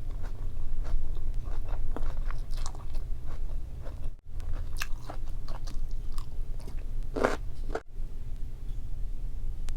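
Close-miked eating of Korean kimchi with boiled meat: irregular biting, crunching and chewing, with a longer, louder mouth noise about seven seconds in, over a steady low hum.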